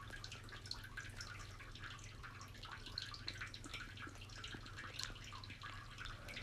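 Faint kitchen room tone: a steady low hum with many small, light clicks scattered throughout.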